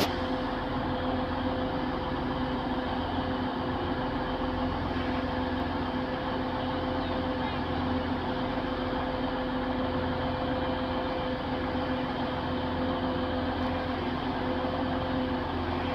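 TransPennine Express Class 185 diesel multiple unit standing at the platform with its underfloor Cummins diesel engines idling: a steady low hum with a constant drone that does not change.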